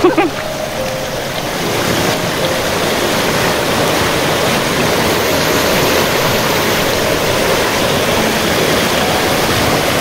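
Mountain stream rushing over rocks: a steady, loud wash of running water.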